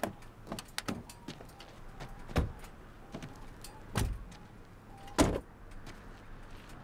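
Car doors opening and shutting, with scattered clicks and a few heavier thuds, the loudest about five seconds in.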